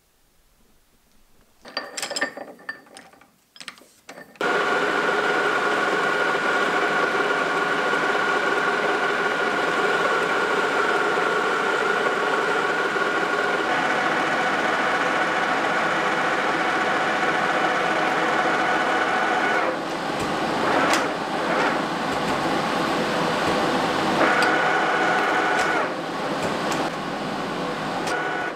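Metal lathe switched on about four seconds in and running steadily under power, its gearing whining, as a thread die held in a hand-steadied die holder cuts a thread on a bar turning in the chuck. A few light clicks and knocks of handling come before it starts.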